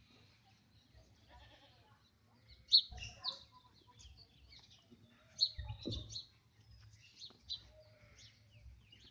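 Faint, scattered animal calls, a few short high cries with the loudest about three and five and a half seconds in.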